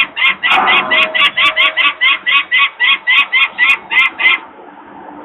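Adult peregrine falcon giving its harsh, rapid alarm call, a fast run of repeated kak notes about four or five a second that stops about four seconds in; the parent is screaming at people disturbing the nest.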